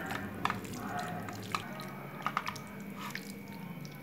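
Raw chicken pieces being mixed in a thick yogurt-and-spice marinade: soft wet squishing with scattered small clicks and taps.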